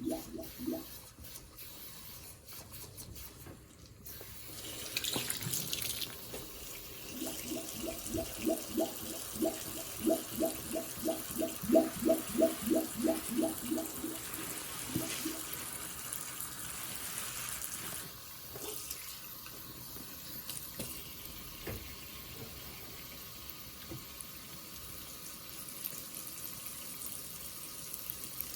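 A sponge soaked in Pine-Sol suds is squeezed under running tap water. A fast, even run of wet squelches, about three a second, sits over the water in the middle and then stops.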